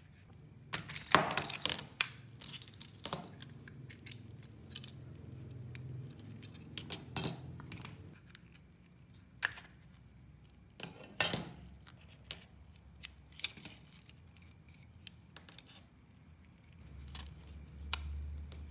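Hard plastic clicks, clacks and rattles of two soldering-gun housings being taken apart and handled, with a dense burst of rattling about a second in and scattered single clicks after it.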